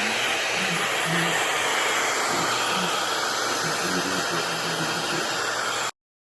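Handheld hair dryer blowing steadily, cutting off suddenly near the end.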